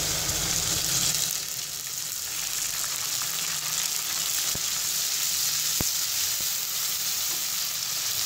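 Ginger-garlic paste sizzling in hot oil with fried onions in a metal kadai while being stirred with a wooden spatula, with a few faint knocks in the middle.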